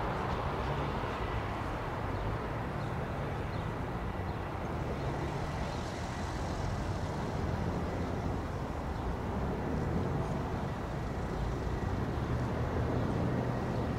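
Airbus A321 airliner's twin jet engines running at idle as it taxis: a steady low rumble with a faint, thin high tone.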